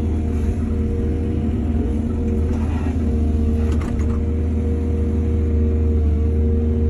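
Excavator's diesel engine running steadily under load. A brief scraping rattle comes about two and a half seconds in, then two sharp clanks just before halfway.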